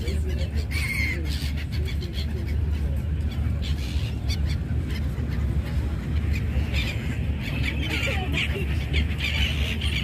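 Gulls calling over the water, one cry about a second in and a flurry of calls near the end, over a steady low rumble.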